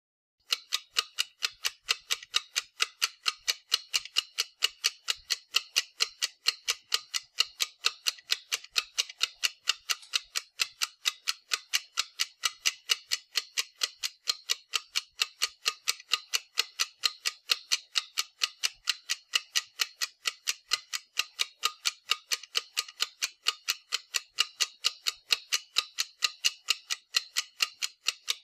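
Clock ticking, a rapid and perfectly even run of sharp ticks that starts suddenly about half a second in and keeps the same pace throughout, laid on as a sound effect.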